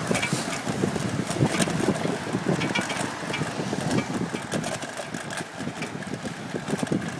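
Wind rushing and buffeting over the microphone of a camera carried along at cycling speed, with scattered light rattling clicks and the sound of car traffic on the road alongside.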